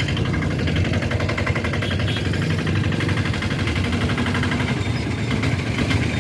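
Motor scooter's small engine running with a fast, even putter over a steady low rumble.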